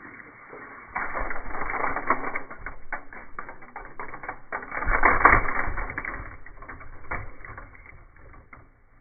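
Plastic twisty fidget toys being handled, a dense run of clicking and clattering that is loudest about a second in and again halfway, then thins out near the end.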